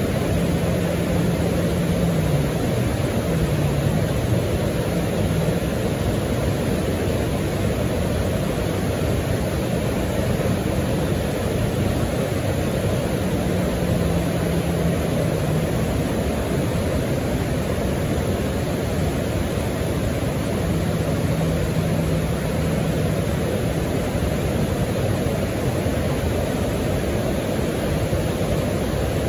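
Steady rushing roar of a boulder-strewn whitewater river rapid. A faint low hum rises out of it and fades a few times.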